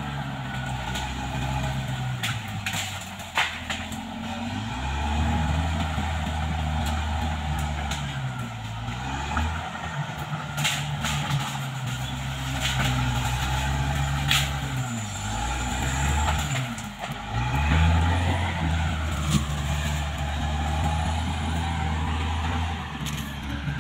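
CAT D6R XL bulldozer's diesel engine working under load, its pitch dipping and picking up again several times, with scattered sharp knocks and cracks.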